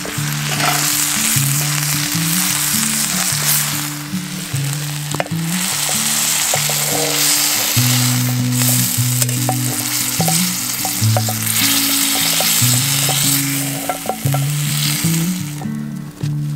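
Food sizzling steadily as it fries in a pan, with a few light clicks. Instrumental music plays underneath, and the sizzle cuts off near the end, leaving only the music.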